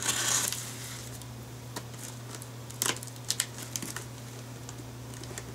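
Hands handling a cardboard shipping box and a utility knife: a brief brushing rustle at the start, then scattered light clicks and taps, bunched about three seconds in, over a steady low electrical hum.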